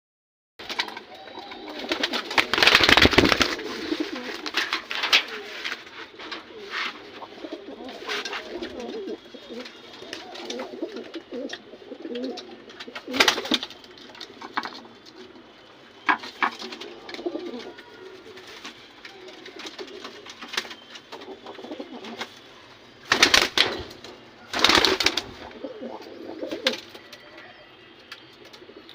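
Domestic pigeons cooing in low, wavering, repeated coos, with several louder sudden noises in between: a few seconds in, around the middle, and twice near the end.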